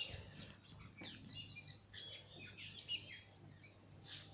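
Small birds chirping, with many short quick calls overlapping.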